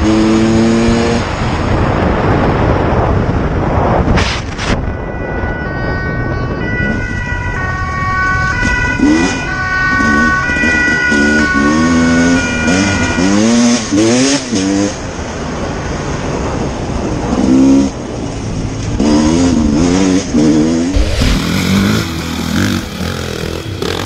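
Dirt bike engines revving up and down over and over, with a siren sounding in alternating tones in the middle stretch.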